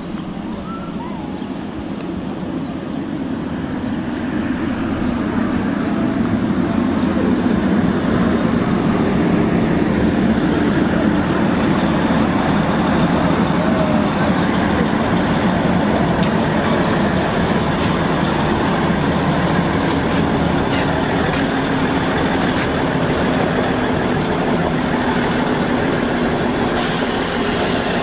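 Old diesel train's engine running at the platform, growing louder over the first several seconds and then holding steady. A hiss of compressed air comes in near the end.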